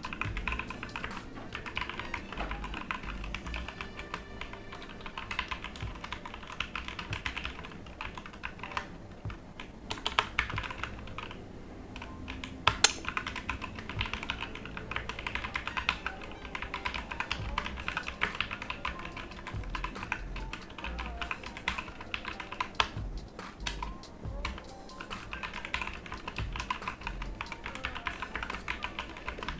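Typing on a Digital Alliance Meca Air mechanical keyboard with light switches, which the typist takes for red switches: a dense, fast run of keystroke clacks with a few short pauses and one sharper, louder clack about halfway through.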